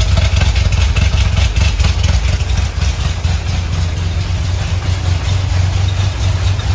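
Corvette C6 Z06's LS7 V8 idling unevenly while running on only a few cylinders. Its lifters are pumped up and holding the valves open, so several cylinders make no compression.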